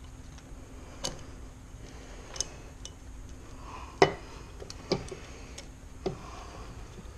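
Separate sharp metal clicks and knocks, about five in all and the loudest about four seconds in, from a Suzuki RM250 two-stroke engine and its parts being handled and turned over on the bench during top-end assembly.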